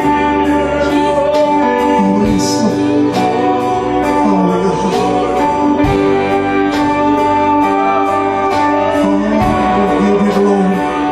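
Live worship band playing a slow song: held chords, electric guitar and bass, with a steady tick from the drums keeping time.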